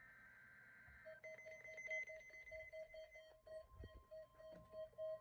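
Faint weather-radio alert signalling for a required weekly test: the end of a SAME header data burst (a rapid two-tone warble), then, about a second in, a rapidly pulsing alarm beep of about five pulses a second starts. A steady higher tone joins it past the halfway mark.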